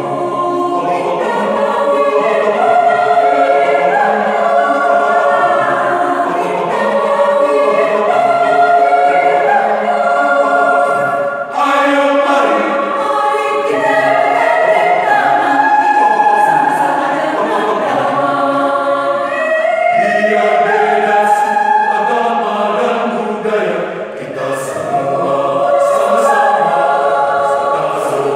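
Mixed choir of men and women singing together in parts, with short breaks between phrases about eleven and twenty-four seconds in.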